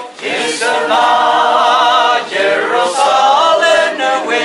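A crowd of men and women singing together without instruments, holding long notes with short breaks between phrases.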